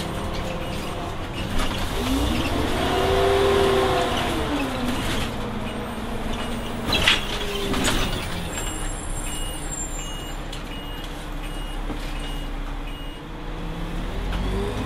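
Volvo Olympian double-decker bus heard from inside, its engine and Voith automatic gearbox whining as it pulls away, the pitch rising and then falling back as it shifts up. A sharp knock comes about seven seconds in, and a regular beeping runs through the middle.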